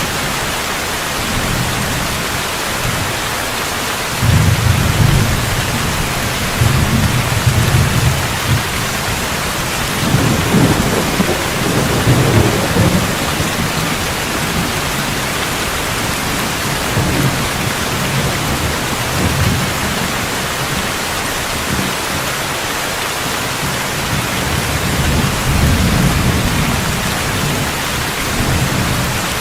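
Steady heavy rain hissing, with low rolling thunder rumbling in several times: about four seconds in, again around ten seconds, and near the end.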